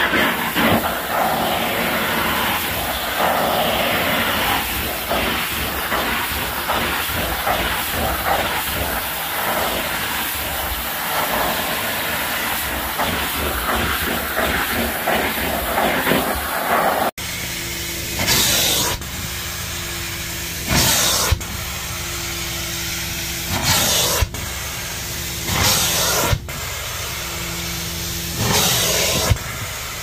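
Hot-water carpet extraction: a stair tool's vacuum rushes and hisses as it is stroked over carpeted stair treads. About halfway through, the sound cuts to a steadier machine hum with a loud surge of spray-and-suction hiss every two to three seconds, as a hand tool is passed over the carpet.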